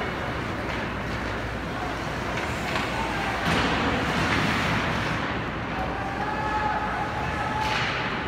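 Gym crowd noise at a basketball game: a steady murmur of voices with scattered calls, swelling louder briefly about three and a half seconds in and again near the end.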